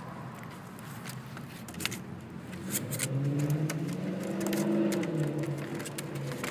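Light clicks and scratches of puppies moving about in a plastic wading pool. About three seconds in, a low hum joins them, rising in pitch and then falling away over about three seconds.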